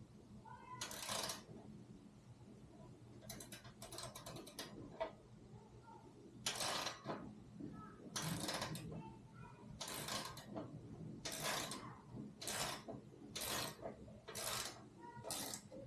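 Ratchet socket wrench tightening the rack's mounting bolts: a quick run of clicks, then steady ratcheting strokes about once a second.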